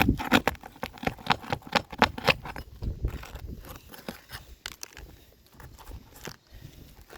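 A roofing pry tool knocking and scraping against asphalt shingles as a shingle is worked at, in quick irregular clicks and scrapes that thin out after about four seconds. The shingle is stuck fast to the self-adhered ice and water shield underneath.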